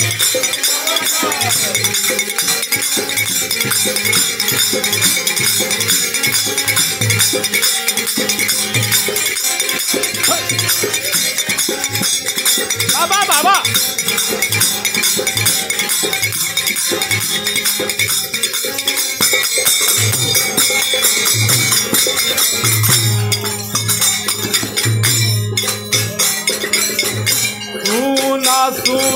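Instrumental interlude of a devotional folk song: a dholak beating a steady rhythm under many small hand cymbals clashing together in a dense, shimmering jangle.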